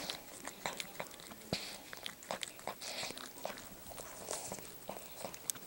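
Yorkshire Terrier mother licking and mouthing her newborn puppy up close: irregular wet smacking and clicking, several times a second.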